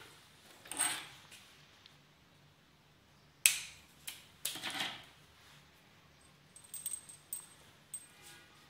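Cables with metal circular connectors and a plug being handled on a desk: a sharp click about three and a half seconds in, rustling knocks just after, and a few light metallic clinks near the end.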